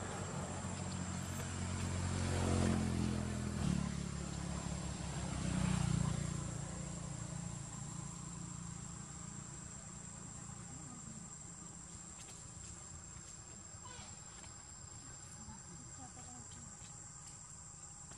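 A motor vehicle's engine passing by, loudest a few seconds in and then fading away, over a steady high buzz of insects.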